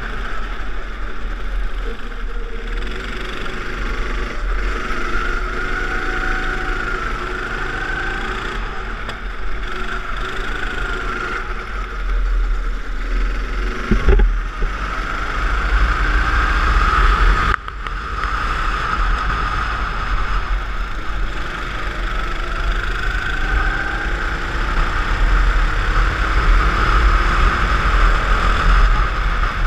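Go-kart's engine heard from on board at speed, its pitch rising and falling as the kart accelerates out of corners and lifts off for the next, with wind buffeting the microphone. A short knock about fourteen seconds in.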